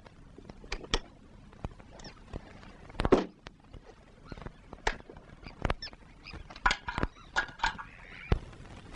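Scattered short clicks and knocks of a cardboard folder and paper being handled, with a louder thump about three seconds in and a quick run of clicks near the end.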